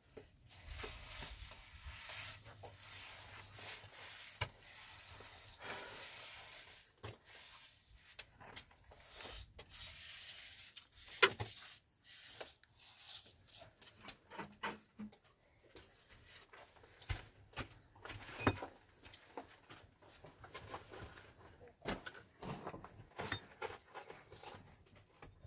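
Handwork sounds: steady scraping for about the first eleven seconds, then irregular knocks and clicks, with sharp knocks about eleven and eighteen seconds in.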